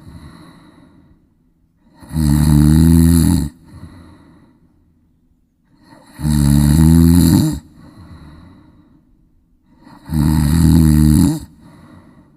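Loud snoring: three long snores about four seconds apart, each lasting over a second, with a softer breath out after each.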